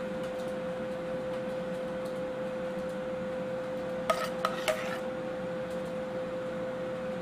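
A large metal serving spoon clinking against the dishes as soft polenta is spooned onto a plate, with a quick run of sharp, ringing clinks about four seconds in. A steady hum with a single tone runs underneath.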